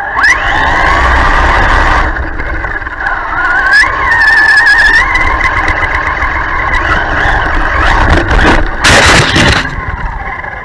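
Traxxas Stampede 4x4 RC truck's electric motor and drivetrain whining as it drives through snow, the pitch rising as it speeds up about four seconds in. A loud rush of snow noise comes about nine seconds in.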